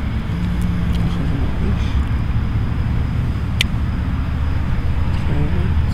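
Steady low rumbling noise, with one sharp short click about three and a half seconds in.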